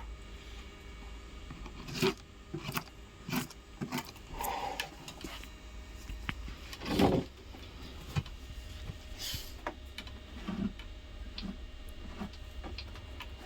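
Workshop handling noises from fitting parts of a large loudspeaker being reconed: scattered taps, knocks and clicks, a few louder ones, over a steady low hum.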